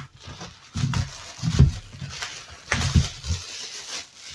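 Rustling and soft thumps of handling as a keyboard is taken out of its packaging, several irregular knocks over a steady crinkly hiss.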